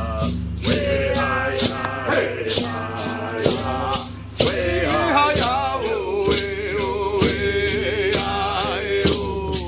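Voices singing a chant to a shaken maracá rattle that beats about twice a second. The singing breaks off briefly about four seconds in while the rattle keeps going, then resumes with a long held note.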